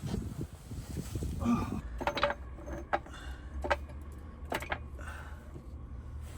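About five sharp clinks and knocks of tools and parts being handled during timing belt work on the engine, some briefly ringing, over a low steady hum.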